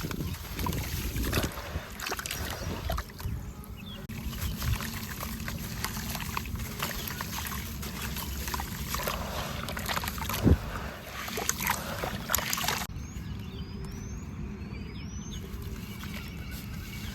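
Small chunks of white sand-cement crumbling in water: a dense, continuous run of soft crackles and little wet clicks, with one sharper knock about ten and a half seconds in.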